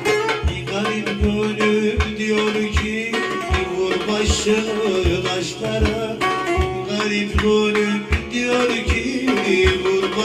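Electric bağlama (long-necked Turkish saz) plucked in a folk melody while a man sings, over a steady low drum beat of somewhat under two thumps a second.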